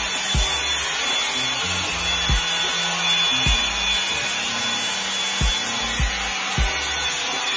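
Revlon One-Step hot-air brush dryer running: a steady rushing hiss of blown air with a thin high whine from the motor. Background music with a bass line and a steady beat plays underneath.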